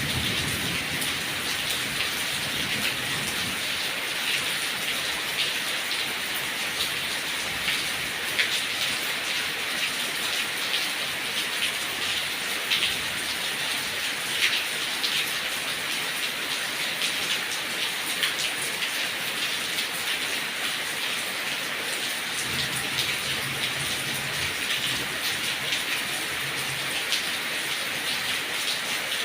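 Heavy rain falling steadily, a dense hiss with many separate drop hits.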